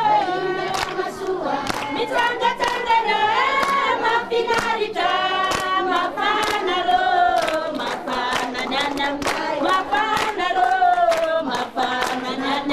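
A group of voices singing together in chorus, with hand claps keeping a steady beat of about two claps a second.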